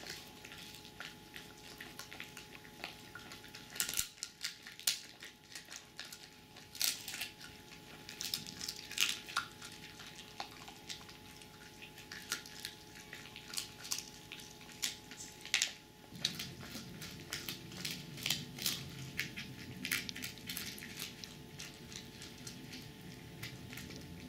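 Italian greyhound gnawing a hard dried chew: irregular sharp crunches and cracks. About two-thirds of the way in, a low rumble joins underneath.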